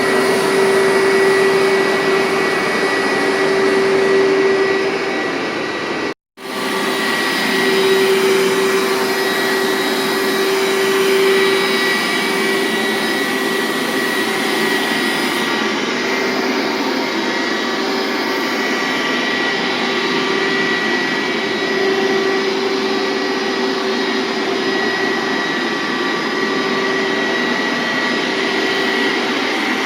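1999 Hoover SteamVac Widepath carpet cleaner running steadily, a loud continuous motor drone with a steady hum and a higher whine. The sound cuts out completely for a moment about six seconds in, then the machine carries on.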